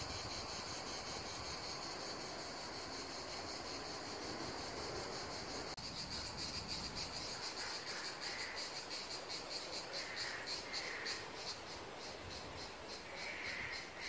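Insects shrilling in a high, steady drone that breaks into rapid, regular pulses about halfway through, with a few softer, lower chirps repeating in the second half.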